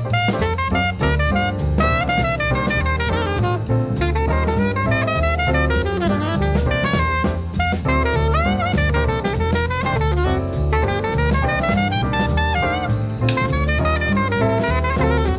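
Jazz music: a saxophone playing a flowing melody over a walking bass line and a drum kit with steady cymbal ticks.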